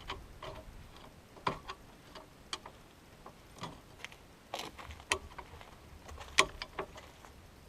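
Irregular sharp clicks and light metallic knocks of hand tools and parts being handled during repair work, the loudest about six and a half seconds in.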